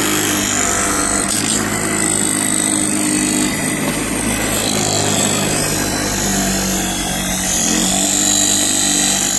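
Bench grinder motor running steadily with its wheel grinding against the edge of a carbon-fibre hydrofoil tail wing, a continuous hum under a harsh grinding hiss.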